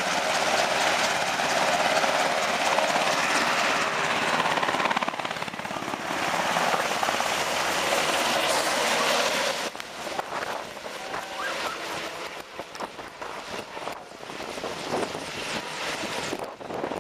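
Helicopter taking off: loud rotor and turbine noise that drops off suddenly about halfway through, then fades as the helicopter moves away.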